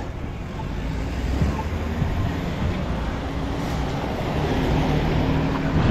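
A pickup truck passing close on a wet street: a steady engine hum and tyre noise on the wet pavement, building toward the end.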